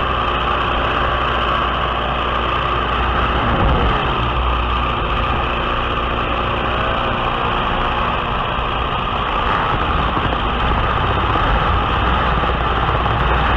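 Biplane engine running steadily in flight, with wind rushing over the microphone of a camera mounted on the aircraft.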